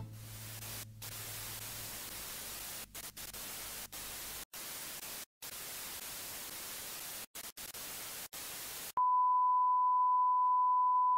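Television-style static hiss that cuts out briefly several times. About nine seconds in it switches abruptly to a steady single-pitch test tone, the reference beep that goes with colour bars.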